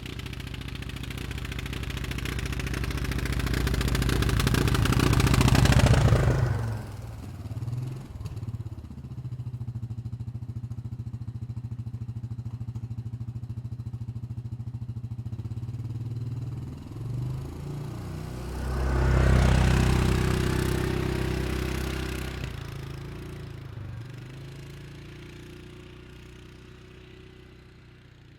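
Four-stroke utility ATV engine: it builds up to a loud peak about six seconds in, drops back to a steady lower running note, then picks up again near the twenty-second mark and fades gradually as it pulls away.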